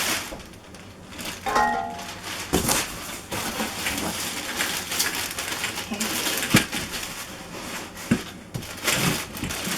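Plastic wrapping crinkling and rustling in irregular bursts as wrapped bench parts are handled and pulled out of a cardboard box, with a few light knocks, one sharper about six and a half seconds in.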